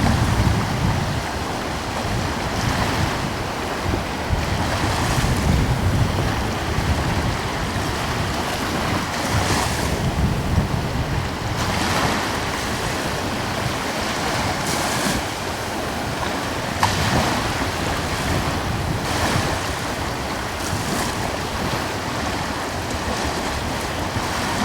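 Small ocean waves breaking and washing on the shore every two to three seconds, over a steady wind.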